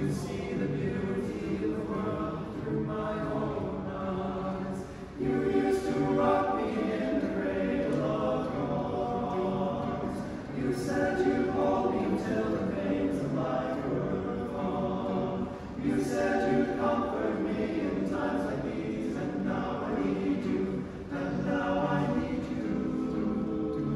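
Ten-voice men's a cappella ensemble singing in close harmony, in phrases of about five seconds with short breaks between them.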